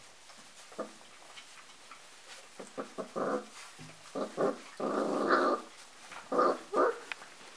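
Golden retriever puppies, about four and a half weeks old, growling in play: short rough growls from about two and a half seconds in, one longer growl around five seconds in, and two more near the end.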